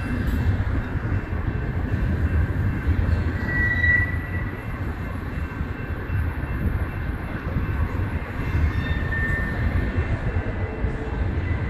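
Double-stack intermodal well cars of a BNSF freight train rolling past, a steady low rumble of wheels on rail. A brief high wheel squeal rises about four seconds in and again about nine seconds in.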